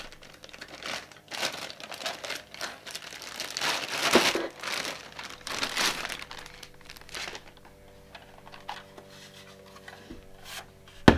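A clear plastic packaging bag crinkling and rustling as plastic toy pieces are pulled out of it, busiest in the first half and quieter later. A single sharp knock near the end.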